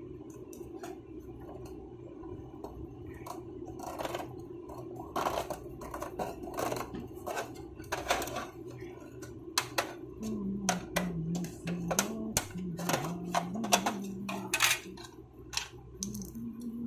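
Irregular clicks, taps and clatter of small hard objects being handled, over a steady low hum. From about ten seconds in, a low tone wavers up and down in pitch.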